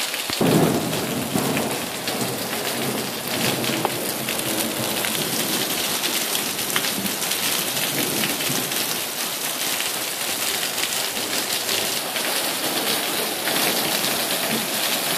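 Heavy rain falling on a wet asphalt car park, a steady hiss of drops splashing on the waterlogged surface.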